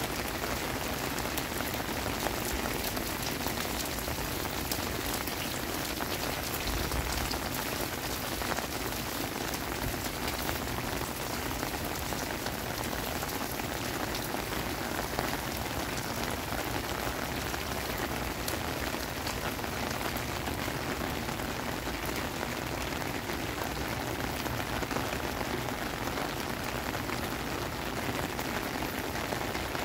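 Heavy rain falling steadily on paved paths and puddles: a dense, even wash of drops hitting wet ground, unchanged throughout.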